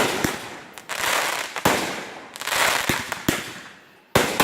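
Fireworks going off in quick succession: about eight sharp bangs, each fading into a long crackling hiss, with a loud bang near the end.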